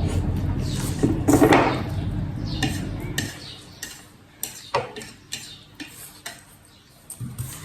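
Chopsticks clicking and scraping against a bowl during eating, with scattered sharp clinks and a louder clatter about a second and a half in.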